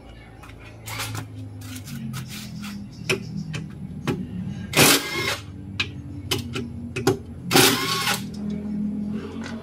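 Impact wrench rattling in short bursts of about half a second, twice, loosening a car's rear wheel lug nuts, with metal clinks between and a low steady hum behind.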